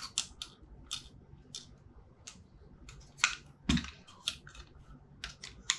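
Irregular light clicks and taps of a small screwdriver and handled plastic parts while small screws are taken out of a Dyson V10 vacuum's motor housing, with one duller knock a little before the four-second mark.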